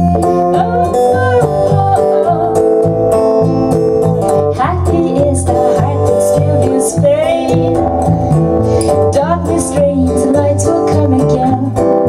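Live acoustic guitar strummed over a plucked electric bass line, with a woman singing.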